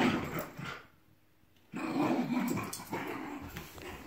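Small dachshund (wiener dog) growling excitedly as it plays with a ball. The sound breaks off completely for under a second about a second in, then the growling carries on.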